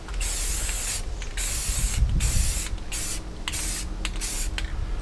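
Aerosol spray paint can spraying in several short bursts, a hiss cut by brief pauses.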